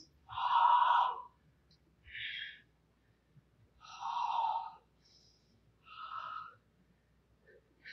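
A martial artist's forceful, audible breaths, four in a row about every two seconds, the first the loudest.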